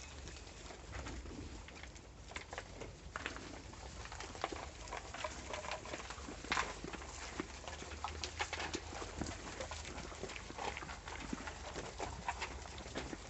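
Goats eating grain from a wooden trough: irregular crunching and clicking as they chew, with now and then a knock of a muzzle against the wood, over a faint steady low hum.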